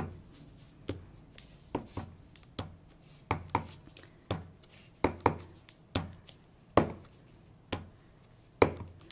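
Wood-mounted rubber stamp knocking down again and again onto cardstock on a craft mat, a string of sharp, irregular knocks about two a second.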